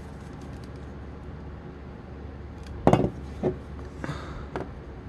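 Handling noise from two plastic toy sonic screwdrivers: about four short clicks and knocks starting about three seconds in, the first the loudest.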